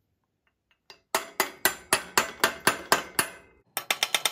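Hammer striking a steel hex driver held in the stripped Allen-head crank bolt of a bicycle crank arm, metal on metal with a ringing note, to drive it in until it bites. About nine strikes at roughly four a second start about a second in, then after a short pause a faster run of taps begins near the end.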